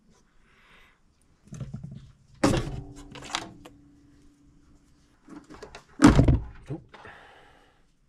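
A few thunks and clunks from vacuum hoses, fittings and engine-bay parts being handled and pulled loose, with no engine running. The loudest knock comes about six seconds in, and an earlier one leaves a brief ringing hum.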